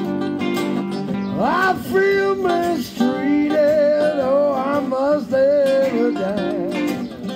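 Acoustic blues played on three guitars in a wordless instrumental break: steady strummed chords under a lead line that bends up in pitch about a second and a half in, then wavers with vibrato through the middle.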